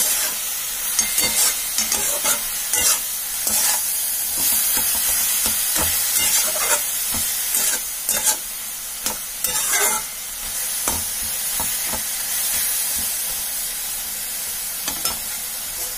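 Metal spatula stirring grated radish, peas and tomato in a kadai, with irregular scrapes and knocks against the pan over a steady frying sizzle.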